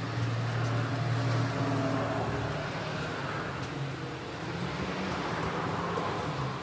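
Steady low drone of a running motor, its pitch wavering slightly, with a few faint clicks.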